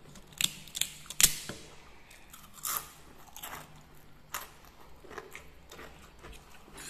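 A crispy seroja snack crunching as it is broken and bitten: several sharp cracks in the first three seconds, the loudest just over a second in, then softer crunching while it is chewed.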